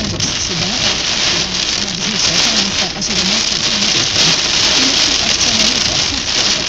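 Heavy rain beating on a car's windscreen, heard from inside the car as a dense, steady hiss.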